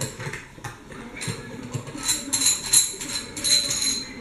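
Threaded metal plumbing fittings, a bronze check valve and a stainless steel union, clinking and rattling against each other as they are handled and screwed together by hand: a run of small metallic clicks with a brief ringing, busiest in the second half.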